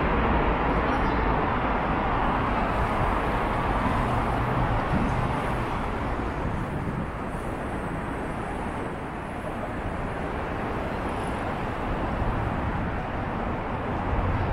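Steady road-traffic noise, a broad rushing with a low hum, which eases off a little midway and swells again near the end.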